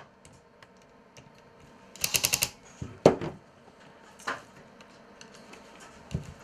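Handling noise from a multiplier fishing reel being worked on at a desk: a quick rattle of about six sharp clicks about two seconds in, then a few single knocks.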